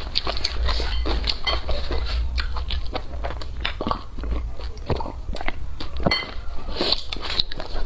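Close-miked eating: a person biting and chewing food, with dense, irregular clicks and wet smacks of the mouth.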